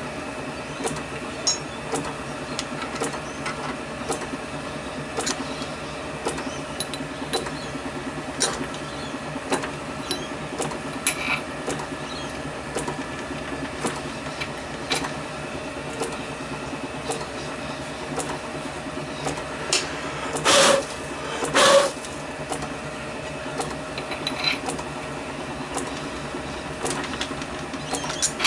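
Lorch toolroom lathe running: a steady hum from the motor and drive, with frequent light ticks and rattles. Two louder brief noises come a little over a second apart, about two-thirds of the way through.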